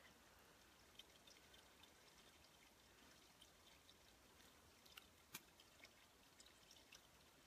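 Near silence: faint outdoor background hiss with a few scattered soft ticks, the clearest about five seconds in.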